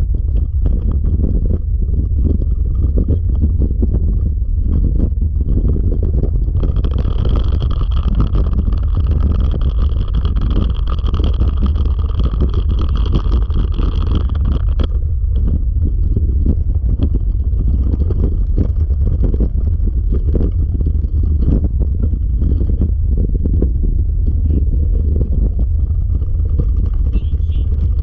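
Dryland dog-sled rig rolling along a dirt trail: a steady low rumble from the wheels and frame, with wind buffeting the microphone.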